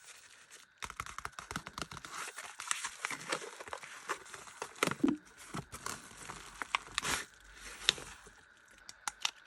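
Packaging being unwrapped by hand: wrapping crinkling and tearing, with many small clicks and taps, starting about a second in.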